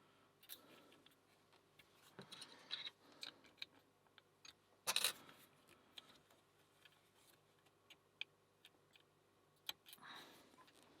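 Faint, irregular small metal clicks and scrapes of a lock pick and tension tool working inside a Kwikset SmartKey cylinder, with a brief louder clatter about five seconds in.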